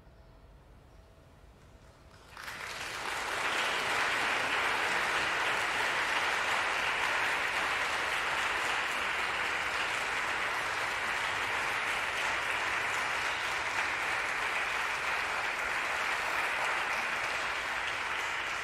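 Audience applause breaking out about two seconds in and continuing steadily as a dense clapping, after a brief near-quiet moment at the close of a choral piece.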